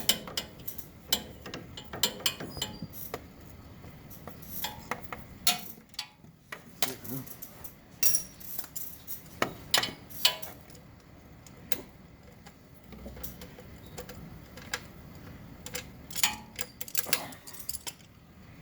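Socket wrench working a 3/8 bolt loose on the front of a car's transmission pan: irregular metallic clicks and clinks of the tool and deep socket on the bolt, with a few quick runs of clicking.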